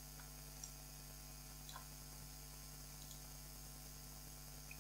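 Near silence: a steady low mains hum with four faint computer-mouse clicks spread unevenly through it.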